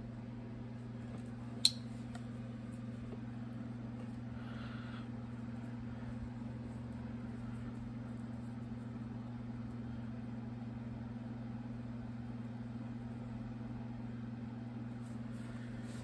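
Steady low hum, with a single sharp click about a second and a half in.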